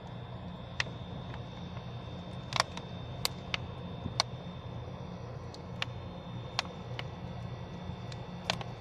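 Air conditioner running with a steady hum and a thin high whine. About a dozen sharp, irregular clicks sound over it.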